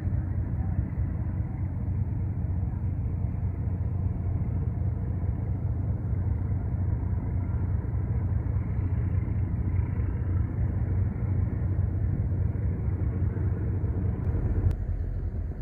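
River cargo ship's engine running with a steady, deep hum and rumble, plus one brief click near the end.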